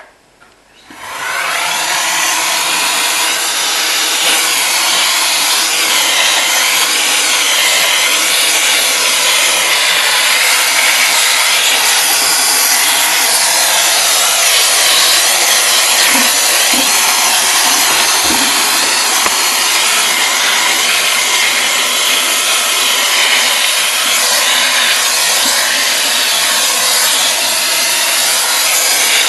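Vacuum cleaner switched on with a click, spinning up over about a second and then running steadily and loudly as it hoovers out the inside of a heat pump's indoor unit.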